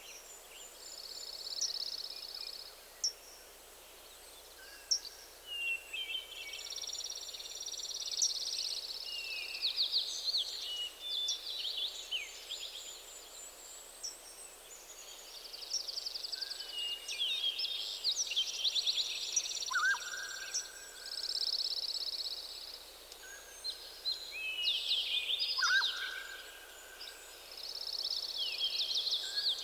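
Several songbirds singing at once in a forest morning chorus: overlapping high trills, chirps and repeated whistled phrases, with a few lower, short steady whistles, over a faint steady hiss.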